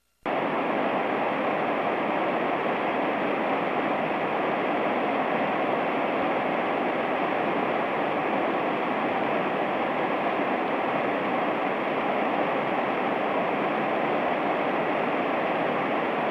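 Steady rush of fast-flowing mountain stream water, the current running high and rapid after a typhoon flood. It starts after a brief cut-out at the very beginning.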